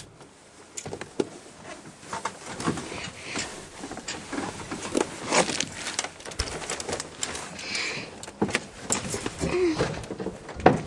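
Irregular knocks, clicks and rustles of someone moving and handling the camera while climbing out of a truck cab.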